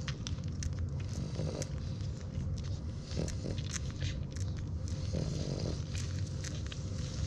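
Newborn French Bulldog puppies suckling at their mother's teats: many small wet clicks and smacks from their mouths over a steady low rumble, with a couple of brief grunts.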